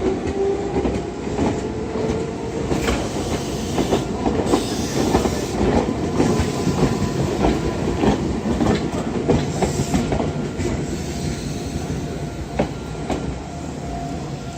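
Meitetsu electric train running, its wheels clacking over rail joints in a dense, uneven run of clicks. A motor whine rises in pitch near the start, and the clatter eases a little toward the end.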